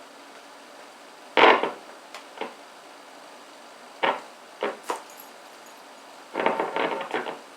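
A series of sharp knocks and clatters of hard objects being handled: one loud knock about a second and a half in, a few lighter ones in the middle, and a quick run of clattering near the end. No sustained notes are heard.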